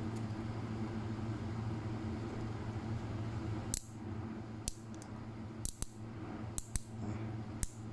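Sharp, short clicks, about seven in the second half, some in quick pairs, as the Magforce magnetic-brake dial on a baitcasting reel's side plate is turned through its click stops. Under them runs a steady low hum.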